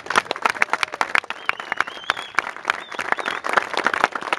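A crowd applauding, many hands clapping densely and unevenly.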